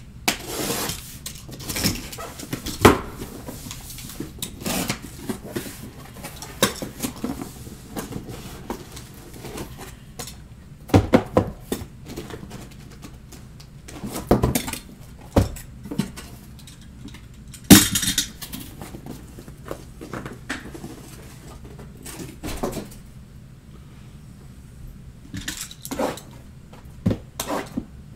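Cardboard case being opened and emptied by hand: irregular knocks, scrapes and rustles of cardboard boxes being handled and set down on a table, the loudest knock a little past halfway.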